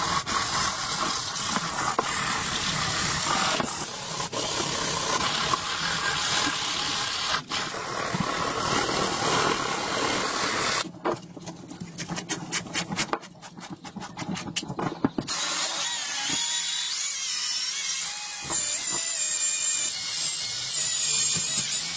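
Abrasive paper scrubbed by hand over a steel gun receiver tube: a steady rasping that breaks into separate short strokes about halfway through. In the last few seconds a small power tool spins a rod inside the tube with a thin, wavering whine.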